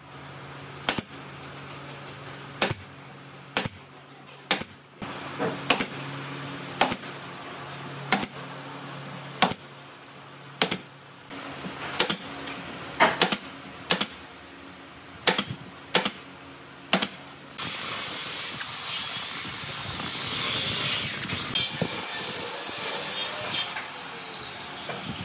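Pneumatic nail gun firing into pine boards: about twenty sharp shots, roughly one a second with some in quick pairs. In the last seven seconds the shots stop and a continuous noisy sound with a wavering whine takes over.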